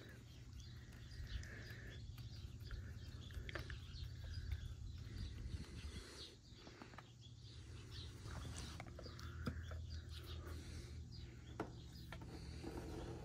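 Faint scattered clicks of hands and metal parts being worked at a semi truck's steer-axle hub nut, over a low steady hum, with a few faint bird chirps.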